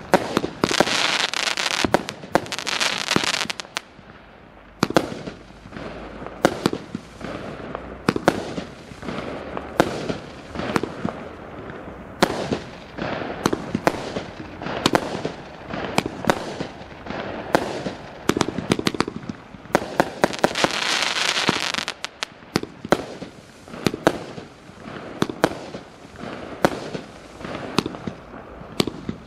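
A 25 mm calibre, 276-shot fireworks cake firing shot after shot: sharp reports in quick succession, each followed by a bursting shell. Twice the shots run together into a dense, hissing crackle, once near the start and once about two-thirds through.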